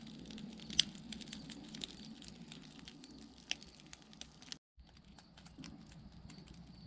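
Burning charcoal in a fire pit crackling, with scattered sharp pops over a low steady rumble. The sound drops out briefly about two-thirds of the way in, then the crackling resumes.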